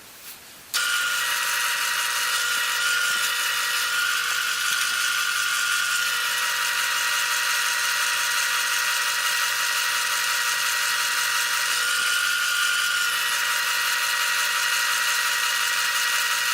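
Wood lathe switched on about a second in, its motor running steadily with a high whine and hiss.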